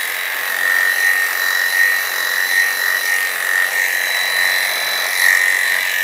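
Electric dog clippers fitted with a number 7 blade, running with a steady high whine as they shave a standard poodle's coat close to the skin.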